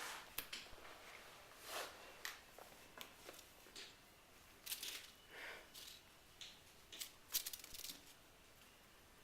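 Seven-week-old RagaMuffin kittens playing: faint, scattered rustling and scuffling with short crinkly scrapes and clicks every second or so.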